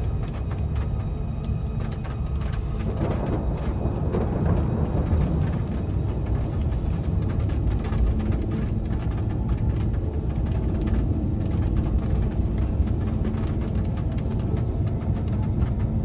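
Steady low rumble of a vehicle heard from inside the cab, with a few faint ticks over it.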